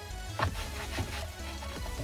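Background music with a steady low bass line and a few light percussive hits.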